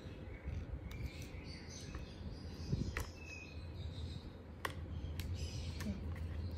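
Light clicks and taps of plastic stationery being handled and set into a zippered pencil case, a handful of separate knocks, over a low steady hum, with a few faint bird chirps.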